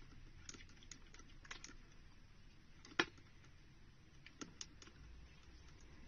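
Faint, scattered small clicks and taps on a plastic tub from a struggling mouse held by a praying mantis: a few in the first two seconds, one sharper, louder click about three seconds in, and a couple more near four and a half seconds, over a low hiss.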